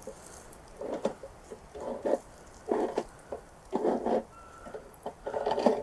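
Charcoal grill's coals being fanned with a flat hand fan: short rustling swishes, about one a second and irregular, with a few light clicks.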